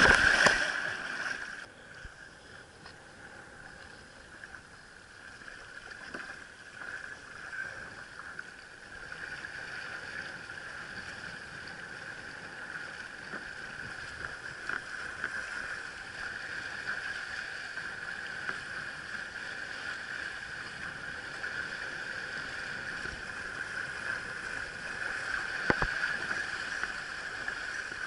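Loud splashing as a windsurf sail slaps down into the water, then a steady rush of water and wind as the board sails on, growing slightly louder.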